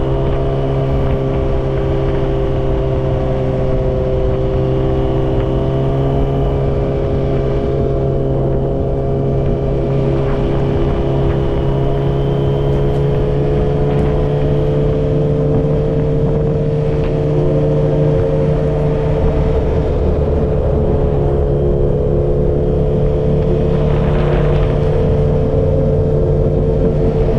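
Yamaha XJ6's inline-four engine, through a Dominator GP full exhaust system with a dB killer, running steadily at a near-constant engine speed, its pitch drifting only slightly up and down.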